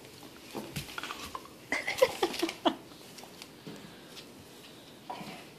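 Two pit bulls play-fighting on a tile floor: scuffling with sharp clicks of claws and paws, and a brief burst of vocal sounds about two seconds in.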